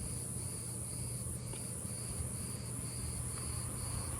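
Crickets chirping: a continuous high trill with a second chirp pulsing about twice a second, over a steady low hum.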